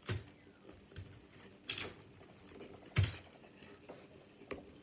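Eating sounds from a seafood boil: food handled in a foil pan, with a few sharp clicks and cracks. The loudest comes about three seconds in.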